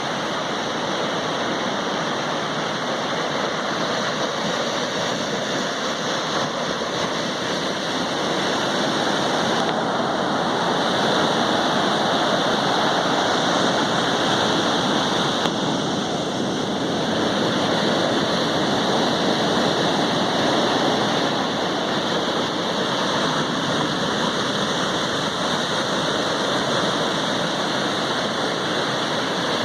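Sea surf: a continuous rush of breaking waves that swells a little louder midway and then eases back.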